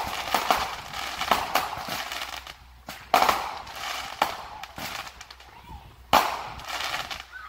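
Consumer aerial fireworks going off: a quick run of crackling pops and small bangs, then two loud bursts about three seconds apart, each trailing off in crackle.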